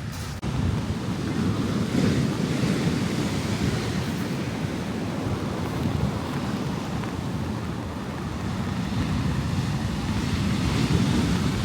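Heavy ocean surf breaking and washing on the shore, with wind buffeting the microphone. The roar swells and eases.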